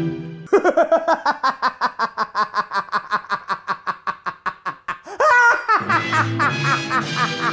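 A rapid, staccato burst of laughter, about nine short ha-sounds a second, trailing off over about four seconds. It ends in a louder drawn-out vocal sound that falls in pitch, and music comes back in near the end.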